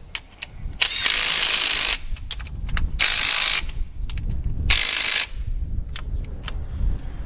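Cordless power tool run in three short bursts, the first about a second long and the next two shorter, running down bolts on a tractor's front axle spindle, with small clicks of tool and socket between the runs.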